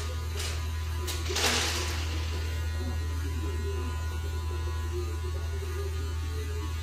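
Electric hair clippers running with a steady buzz while trimming a boy's short hair. A brief hiss about a second and a half in.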